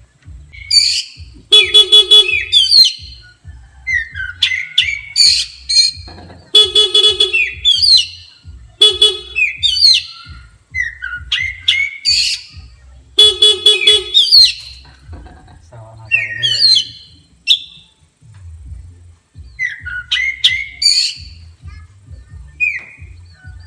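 Oriental magpie-robin singing loudly: rapid chirps and whistled sweeps, broken by four short buzzy, rasping notes.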